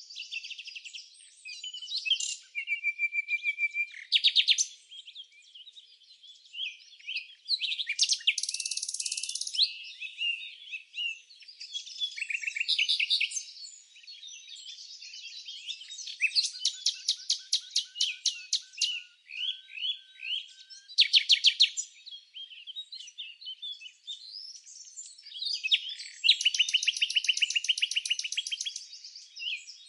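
Several songbirds singing and chirping at once, with fast trills and quick runs of repeated high notes overlapping one another.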